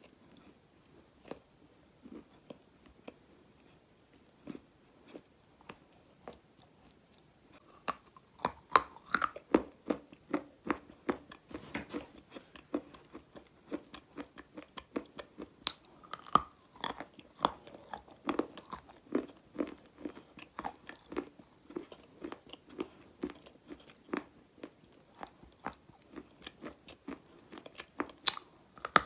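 A person chewing dry black clay close to the microphone, with a dry crunch. There are sparse small crunches and clicks for the first several seconds, then steady rapid crunching from about eight seconds in.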